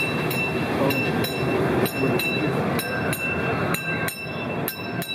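Amusement-park panorama train rolling along its track, its wheels clicking over the rail joints about three times a second, with a faint steady high whine.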